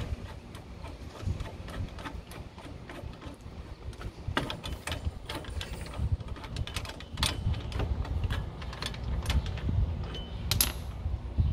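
Scattered metallic clicks and clinks as the mounting bolts of a rear wheel hub bearing assembly are handled and threaded in by hand, over a low rumble.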